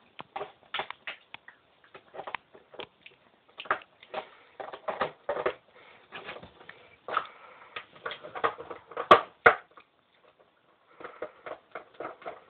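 A small dog sniffing and snuffling close to the microphone in short, irregular bursts, mixed with rustling. Two sharp clicks about nine seconds in are the loudest sounds.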